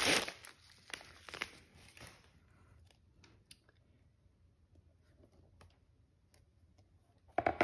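Plastic USPS padded bubble mailer crinkling and rustling as it is handled, for about two seconds, then mostly quiet with a few faint clicks of handling and a sharper knock near the end.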